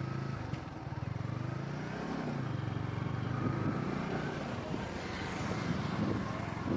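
A motor vehicle's engine running steadily nearby, a low, even hum.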